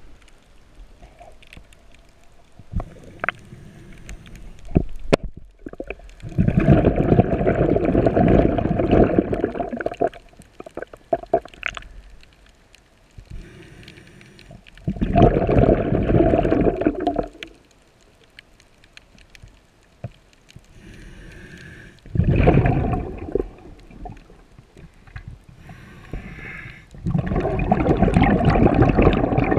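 A scuba diver's exhaled air bubbles out of the regulator's exhaust in four long noisy bursts, several seconds apart, heard underwater. Fainter hissing comes between the bursts.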